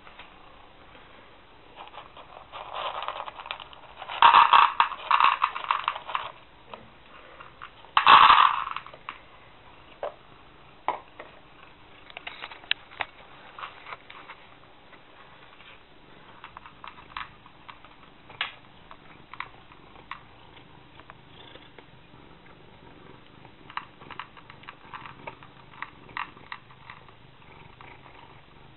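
Dry cat food rattling into a plastic bowl in two loud pours a few seconds in, then a cat eating the kibble, with scattered crunching clicks that come thicker near the end.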